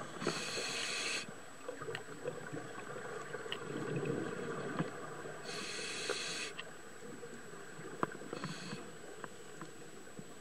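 A scuba diver breathing through a regulator underwater. There are three hissing inhalations, about a second long near the start and in the middle and a shorter one near the end, with a low bubbling rush of exhaled bubbles between. Scattered faint clicks and a faint steady high whine run underneath.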